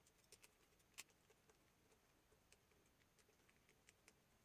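Near silence, with faint scattered clicks and taps, the plainest about a second in: small parts of an extension-cord socket being handled and taken apart.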